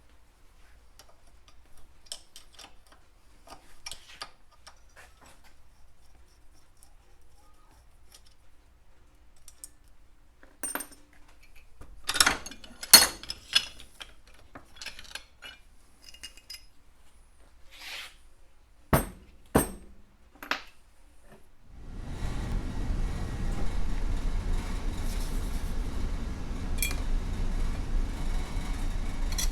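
Metal engine parts and hand tools clinking and tapping on a workbench, a few sharp clinks standing out in the middle. About two-thirds of the way through, a steady noise starts and keeps going.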